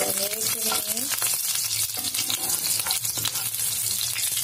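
Green chillies and nigella seeds sizzling and spattering in hot mustard oil, a dense continuous crackle. The cook puts the spitting down to a little water on them.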